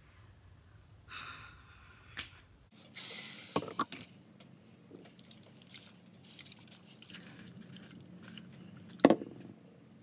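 Hair pick or comb raking through dry, gel-set natural hair: scratchy rustling strokes, the loudest about three seconds in, and a single sharp knock near the end.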